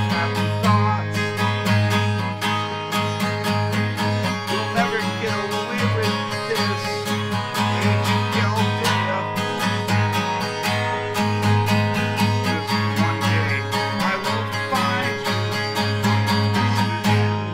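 Steel-string acoustic guitar, capoed on the neck, strummed briskly in a steady rhythm of chords.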